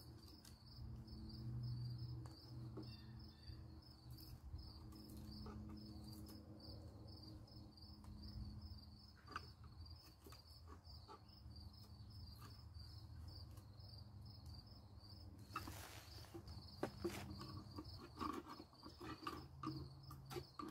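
Crickets chirping in a steady, even pulse over a faint low hum, with faint intermittent scraping and clicking of a tool on wood as dried glue is scraped off a wooden chair leg; one short louder scrape comes late on.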